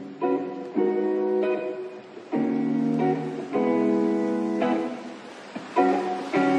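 Background music of strummed acoustic guitar: a slow run of chords, each struck suddenly and left to ring for about a second.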